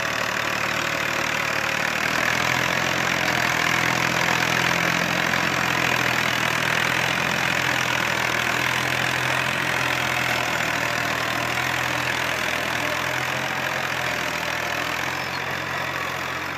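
Old Universal tractor's diesel engine running steadily under load while pulling a PTO-driven rotary tiller through dry soil, a steady low engine hum under a constant rushing churn from the tiller. The sound eases off slightly near the end.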